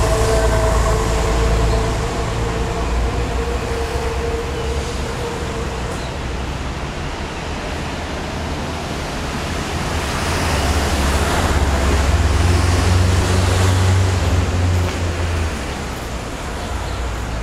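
Street traffic: a steady low rumble of vehicle engines from the surrounding roads, swelling louder as a vehicle passes about ten to fifteen seconds in. A thin steady whine sounds over it for the first several seconds.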